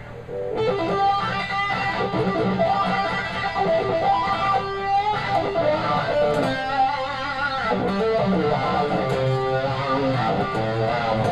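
Electric guitar, a Stratocaster-style guitar played through a wah pedal, playing a lead phrase in which the accent notes are punched with a quick toe-down stroke of the pedal, ending on a punched last note.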